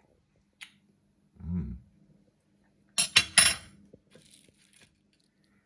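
Cutlery clinking against a plate of fried panko-breaded plaice: a small click early, then two sharp clinks close together about three seconds in, the loudest sounds. A faint steady hum sits underneath.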